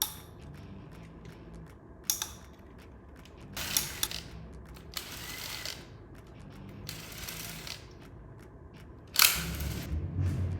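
Ratchet wrench on an 8 mm socket loosening the rocker arm bolts of a GM 5.3-litre V8: several short spells of ratchet clicking and metal clinks, the loudest near the end.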